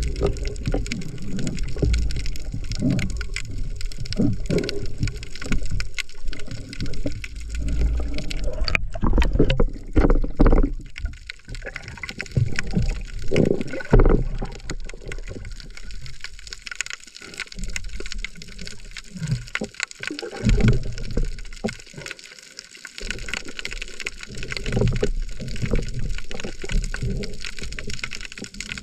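Water sloshing and gurgling, muffled as heard through an underwater camera housing, with uneven low rumbles as the swimmer moves. A single sharp knock about nine seconds in.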